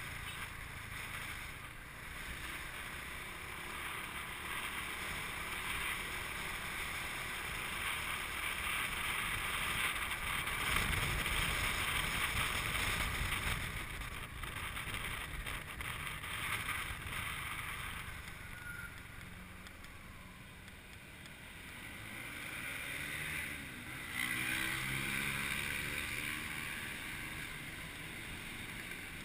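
Motorcycle riding through city traffic: a steady rush of wind and road noise with the bike's engine underneath. It is loudest about a third of the way in, eases off, then picks up again a few seconds from the end.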